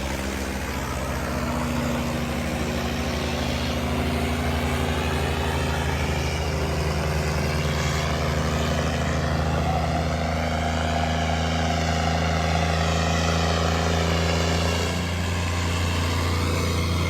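Diesel tractor engines, a John Deere among them, running hard and steady under heavy load while straining against each other in a tractor tug-of-war pull.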